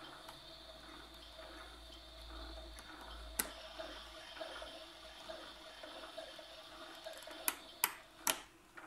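Fisher-Price Aquarium Cradle Swing playing its water sound effect through its small built-in speaker, a steady watery hiss. One sharp click about a third of the way in and three quick clicks near the end come from its control-panel buttons being pressed.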